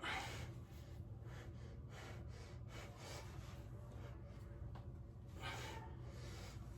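A person breathing out hard twice, once right at the start and once about five and a half seconds in, over a steady low hum.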